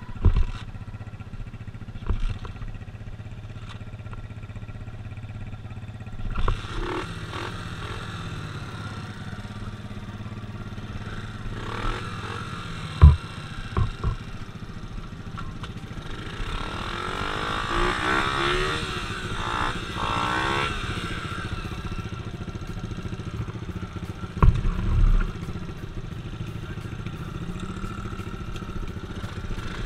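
An engine running steadily, with several sharp knocks and thumps: two about a second apart near the middle and a pair late on.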